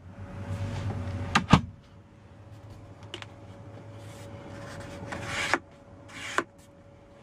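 Lamborghini Aventador glove box lid being opened and closed: two sharp latch clicks about a second and a half in, then softer brushing sounds of the lid and contents being handled.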